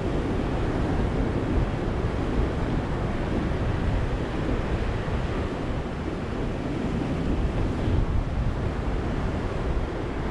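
Ocean surf washing onto a beach: a steady, low rush of waves with no single break standing out.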